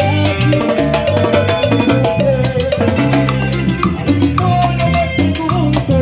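Live Latin dance band playing an instrumental passage: a steady, regular percussion beat over a repeating bass line, with melody instruments on top.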